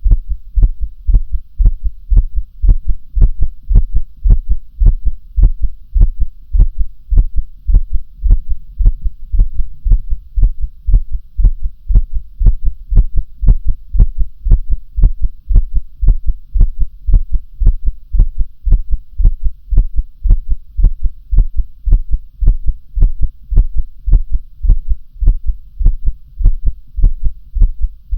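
Human heartbeat: low thumps repeating in a steady, even rhythm, with a low hum underneath.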